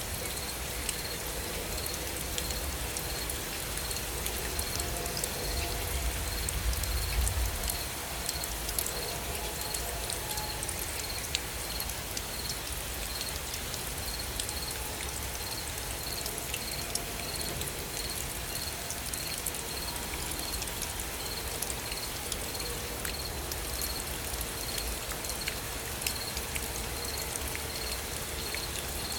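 Steady gentle rain falling, with scattered sharp drop ticks throughout. A faint high chirp repeats evenly about once every 0.7 seconds, and a low rumble swells briefly about six seconds in.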